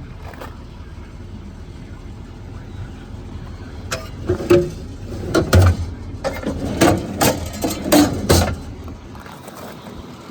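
A low steady rumble, with a run of sharp knocks and clicks starting about four seconds in, typical of metal fittings being handled on a truck's service body.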